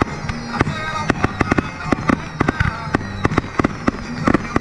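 Aerial fireworks going off in quick succession: a rapid, irregular string of sharp bangs and crackles, several a second.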